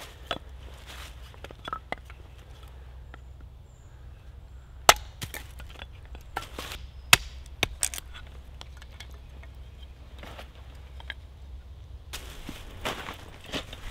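Hatchet splitting kindling on a wooden chopping block: a few sharp chops, the loudest about five seconds in and two more close together around seven seconds, with lighter knocks between.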